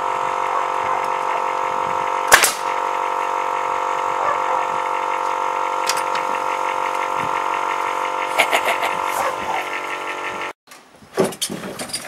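Air compressor running steadily while a pneumatic nail gun fires into timber. One loud crack comes about two seconds in, another near six seconds, and a quick run of shots near nine seconds. The sound cuts off suddenly near the end, followed by a couple of knocks.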